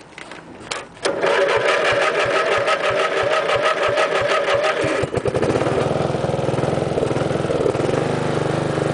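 Cold start of a 1986 MTD Coast to Coast lawn tractor's 11 hp Briggs & Stratton engine: the starter cranks it rhythmically for about four seconds, and about five seconds in it catches and runs steadily.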